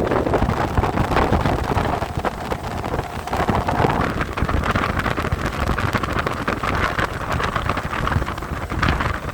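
Small boat's outboard motor running steadily during a river crossing, with wind buffeting the microphone.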